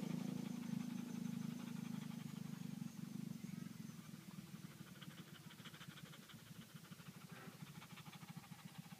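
German shepherd panting fast and evenly with its tongue out, cooling down after play. A low steady hum under it fades away over the first few seconds.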